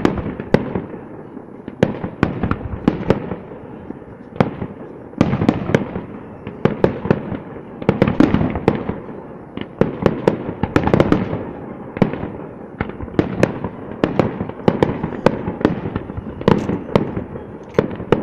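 Aerial firework shells bursting in a near-continuous barrage, several sharp bangs a second.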